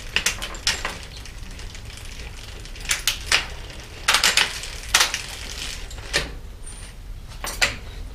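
Bicycle's SRAM S7 seven-speed internal gear hub being shifted through its gears while the rear wheel spins: a string of sharp, irregular clicks and clunks from the shifter and hub. This is a shift test of the freshly refitted shift box, which works.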